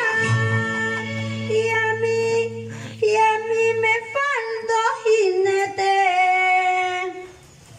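A woman singing long held notes of a ranchera into a microphone over a karaoke backing track. The song ends about seven seconds in.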